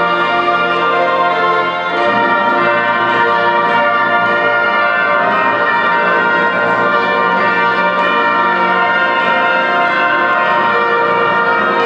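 Orchestra playing a loud, full passage of sustained chords, with brass prominent over the strings.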